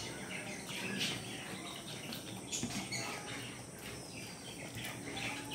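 Quiet eating sounds of two people eating biryani by hand: chewing and mouth smacks, with a few faint clicks.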